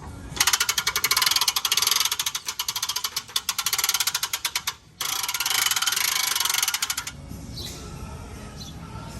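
Rapid mechanical clicking, a ratchet-like rasp lasting about four seconds, a brief pause, then a second, denser two-second rasp. A few faint high chirps follow near the end.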